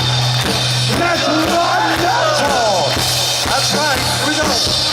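Heavy metal band playing live: drums hit over a held low note, with sliding, bending melodic lines above.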